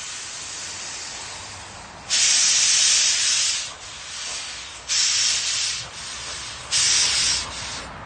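Small steam locomotive approaching, blowing steam from its cylinder drain cocks: a steady hiss broken by three loud blasts of hissing steam, each about a second long, starting about two seconds in.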